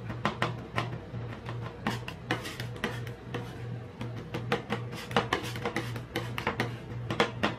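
Metal spatulas clacking and scraping on a steel ice-cream-roll cold plate as they chop ice cream mix, with quick, irregular strikes several times a second. Background music plays under it.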